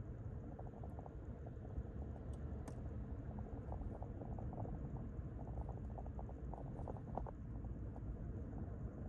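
Car cabin noise while driving slowly: a steady low rumble of engine and tyres, with light crackling and ticking running through it.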